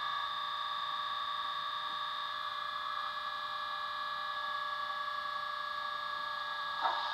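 Digital sound decoder in a model Class 20 diesel locomotive playing the recorded English Electric engine at a steady idle through the model's small double iPhone speaker, with a brief louder bump near the end.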